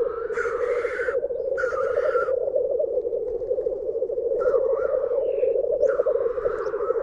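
Lekking male black grouse: a continuous bubbling, cooing song, with harsh hissing calls over it, two in the first couple of seconds and two more later on.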